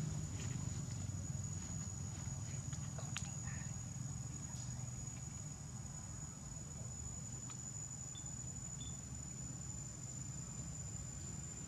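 A steady high-pitched insect trill over a low rumble that eases off slightly, with a few faint clicks in the first few seconds.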